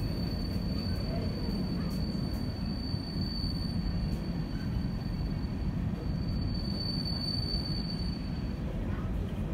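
Freight train of coal hopper cars rolling slowly, a steady low rumble with one thin, steady high-pitched wheel squeal over it that stops near the end.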